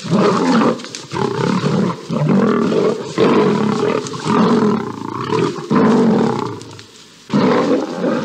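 Lions fighting, roaring in a rapid run of loud bursts one after another, with a short lull near the end.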